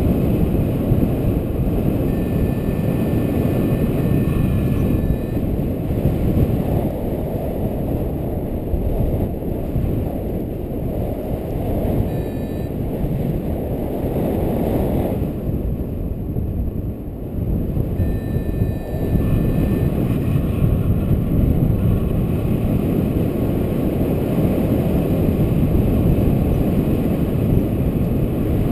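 Airflow buffeting the microphone of a paraglider pilot's camera in flight, a loud, steady rush of wind noise that eases briefly about halfway through.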